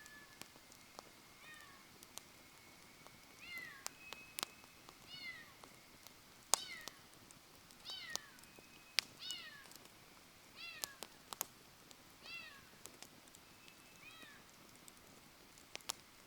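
An animal gives about ten short, falling, meow-like cries, roughly one a second, over the sharp crackle and pops of a wood campfire. Thin whistling tones from the burning wood come and go.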